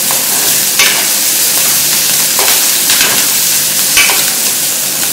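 Chopped onions and green chillies sizzling in hot oil in a metal kadai while a steel ladle stirs them. The ladle scrapes or knocks against the pan a few times.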